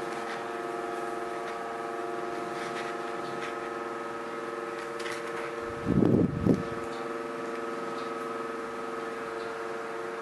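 A steady hum made of several even, unchanging tones, with faint scattered ticks and two short low bumps about six seconds in.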